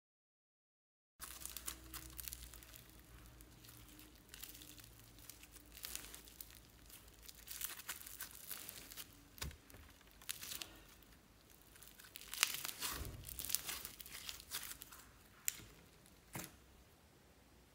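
Blue foam-bead slime squeezed, folded and pressed by hand, giving irregular sticky crackling and popping. It starts about a second in and comes in clusters, densest about two-thirds of the way through.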